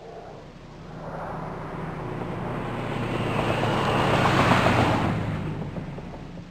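An Audi car passing by: the engine and road noise build up to a peak about four and a half seconds in, then fade away.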